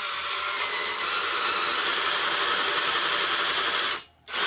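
Makita cordless drill boring a step-drilled hole into cast iron, dry with no oil, running steadily. It stops suddenly about four seconds in and starts again almost at once.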